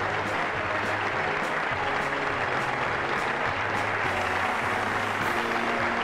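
Sustained applause from many people clapping, with background music playing underneath.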